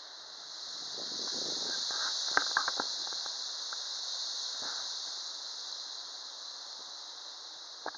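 A gust of wind rushing through tree leaves: a high hiss that swells about half a second in and slowly dies away, with a few brief clicks in the middle.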